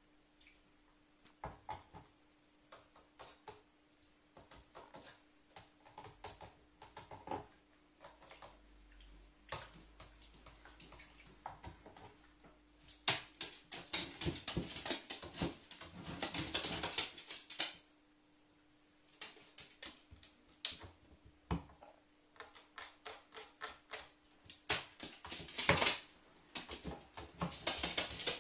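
A carrion crow's claws clicking on a wooden floor and its beak tapping and pushing a plastic dipper cup, the cup knocking and scraping across the floorboards in dense rattling clusters about halfway through and again near the end.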